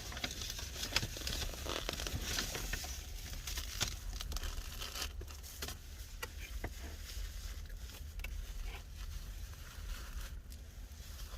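Crunchy pizza crust being chewed close to the microphone: irregular crackling crunches over a steady low hum.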